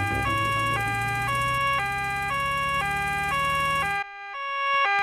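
Cartoon ambulance car's two-tone siren, switching evenly between a high and a low note about twice a second, over a low engine hum. About four seconds in, the hum drops out and the siren is fainter, then grows louder.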